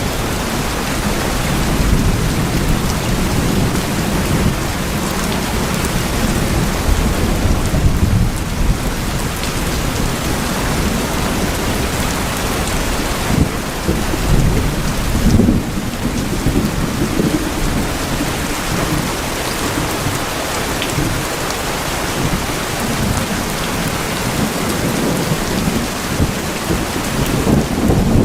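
Steady heavy rain falling on tin houses: a dense, even patter on the metal, with a constant deep rumble underneath.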